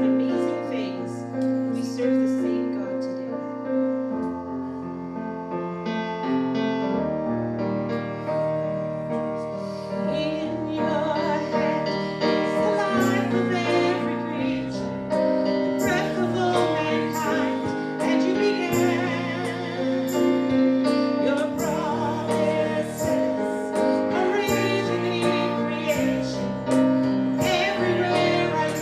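Piano music with sustained chords, and a singing voice joining over it about ten seconds in.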